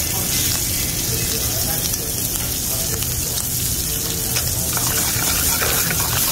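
Shrimp frying in butter in a sauté pan on a gas burner, a steady sizzle.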